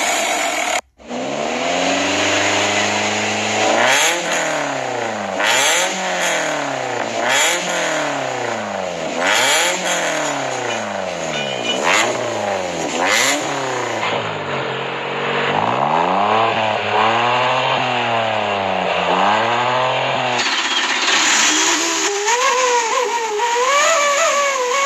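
Car engine through an aftermarket racing muffler, revved over and over while standing: a rise and fall in pitch about once a second, with sharp cracks between some of the revs. There is a short break about a second in, and near the end a different warbling, wavering tone takes over.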